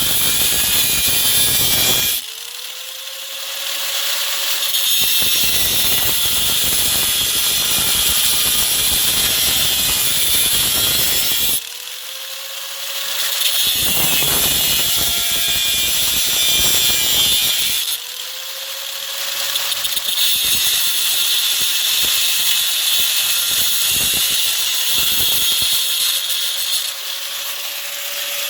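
High-speed power tool cutting through a heavy-duty stainless steel knife blade in four passes of harsh grinding noise, each a few seconds long. Between passes the tool is eased off the steel so the blade doesn't get too hot, and the motor whines freely at one steady pitch, picking back up quickly after each pass.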